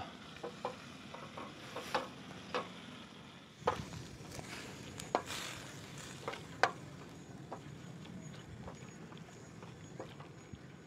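Small pieces of meat sizzling in a sac pan on a portable stove, with scattered clinks and scrapes of a utensil stirring them, the sharpest about four seconds in and again between five and seven seconds.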